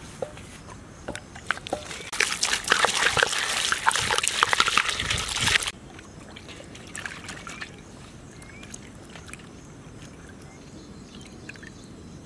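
Water poured from a large plastic jug into a steel bowl of vegetables, splashing loudly for about three and a half seconds and stopping suddenly. Then fainter splashing as the vegetables are rubbed clean by hand in the water.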